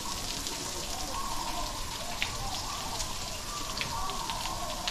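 Indistinct distant voices over a steady hiss, with scattered light ticks.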